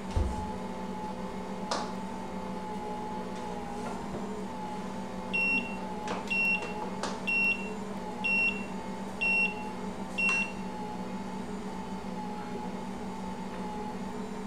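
Ankarsrum stand mixer running steadily as it kneads bread dough with the dough hook, a constant motor hum. About five seconds in, a digital kitchen timer beeps six times, about once a second; there is a thump at the start and a few light clicks.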